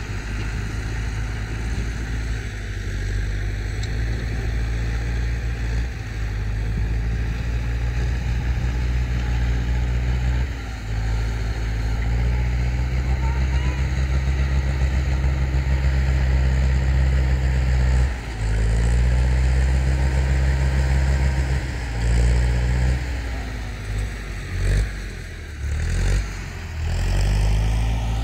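Tractor engine running loudly, its pitch dipping briefly and recovering several times, most often in the last few seconds.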